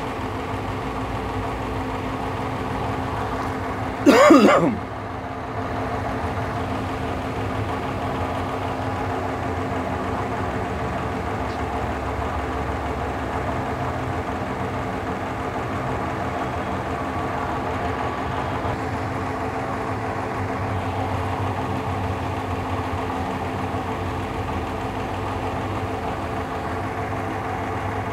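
Steady machine hum with several steady tones and a low rumble. About four seconds in, a brief loud vocal sound cuts across it.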